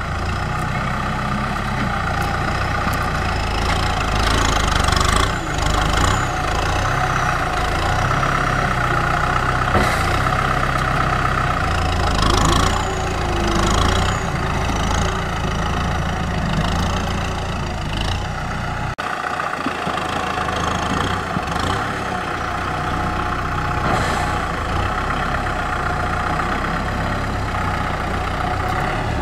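Kubota M6040SU tractor's four-cylinder diesel engine running steadily while the tractor works the ground with its front blade and rear disc plough, with a few scattered knocks from the machine and implements.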